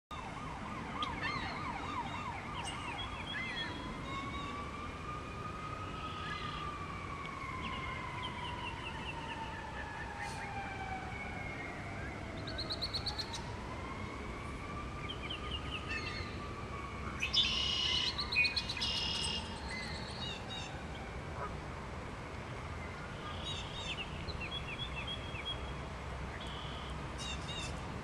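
Emergency-vehicle siren wailing in two long, slow rise-and-fall sweeps. Songbirds chirp and trill throughout, in their loudest burst about two-thirds of the way through.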